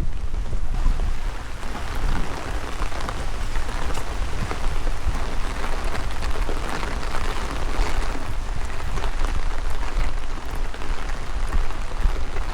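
Steady rain falling, with many small drop ticks in an even hiss, over a low rumble of wind buffeting the microphone.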